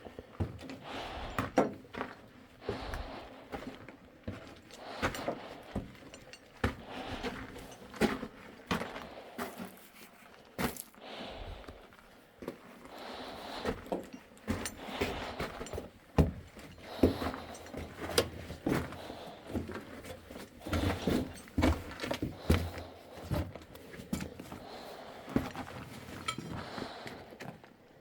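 Footsteps and scuffing on rock and loose debris, with irregular knocks and clinks of metal gear as someone moves through a mine tunnel.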